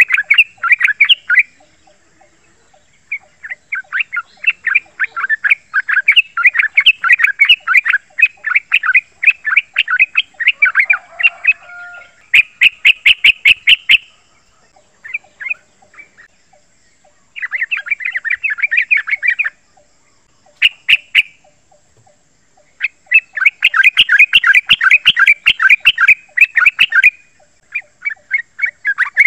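Male yellow-vented bulbul singing its rolling song: fast runs of chattering notes in several bursts of a few seconds, the longest near the start, with short pauses between.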